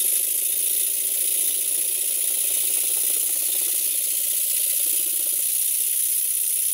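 Stuart Twin Launch twin-cylinder model steam engine running fast in reverse on compressed air: a rapid, even run of exhaust beats over a steady hiss of air.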